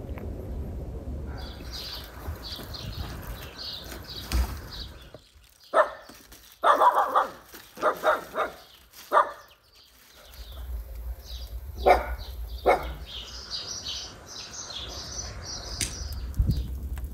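A dog barking: a quick run of short barks, then two more after a pause. Small birds chirp at times over a low wind rumble.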